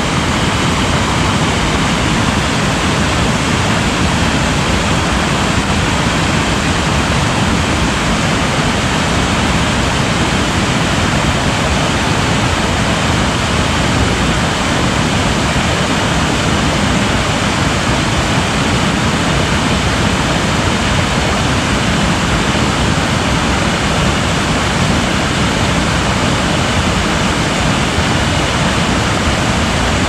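Waterfall running full after heavy rain: a loud, steady rush of falling water that does not let up.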